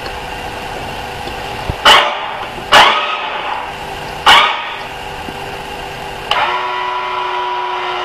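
A dog barks three times, each bark loud and sudden and dying away quickly. A few seconds later a steady horn-like tone starts and is held.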